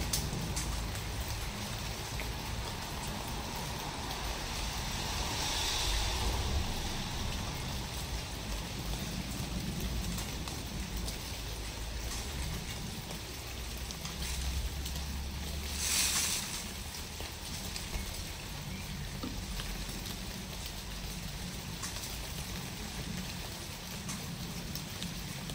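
Steady outdoor background noise: a low rumble under an even hiss, swelling slightly about six seconds in, with a brief louder rush about sixteen seconds in.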